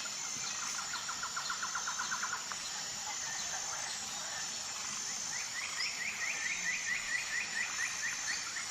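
Forest ambience: a steady high hiss with two rapid bird trills, the first lower and shorter, the second higher and longer, running about six or seven notes a second.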